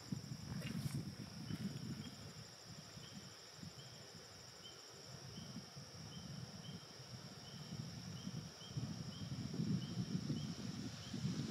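Insects trilling steadily in a high, even note, with a short chirp repeating about twice a second. Under it runs an uneven low rumble that swells and fades and is loudest near the end.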